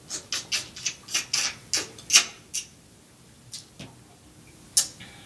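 Close-up mouth sounds of eating snow crab: a quick run of about ten wet smacks, sucks and chews in the first couple of seconds, then a few scattered ones near the end.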